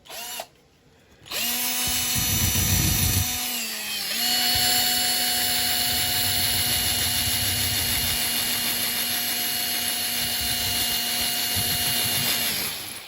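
Electric drill fitted with a wire wheel, running at steady speed. It dips briefly about four seconds in, then runs down and stops near the end: the drill is dying.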